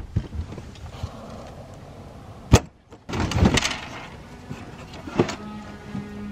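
Plastic engine cover (doghouse) of a van being unclipped and lifted out: a few sharp clicks as the clips are undone, a loud knock about two and a half seconds in, then scraping and rustling as the cover is worked loose, with another knock near the end.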